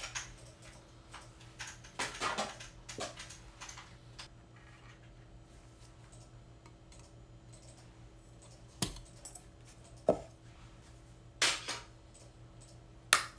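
Metal military canteen cup and its lid handled after cooking rice, with a spoon working in the rice: a handful of separate light clinks and knocks with quiet gaps between them.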